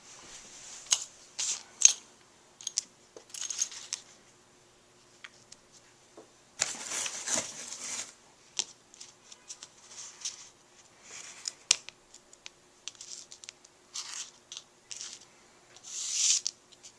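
Handling noise: irregular rustling and scratching with sharp little clicks, the two loudest clicks about a second apart near the start, and a longer rustle around the middle.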